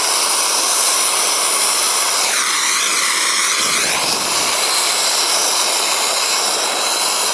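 Gas torch flame hissing steadily while it heats a copper pipe and its ground clamp for soldering. The hiss shifts briefly a little over two seconds in, then steadies again.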